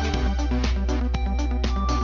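Electronic background music with a steady beat and a sustained bass line.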